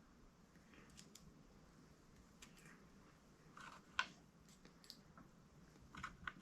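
Faint, sparse clicks of small metal parts being handled while a washer and retaining pin are fitted onto a VW rocker-arm shaft, the sharpest click about four seconds in and a few more near the end.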